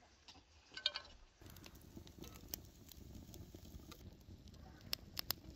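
A brief clatter of rosehips being handled in a metal pot about a second in, then a wood fire burning with a low rumble and scattered crackles, several sharp pops coming close together near the end.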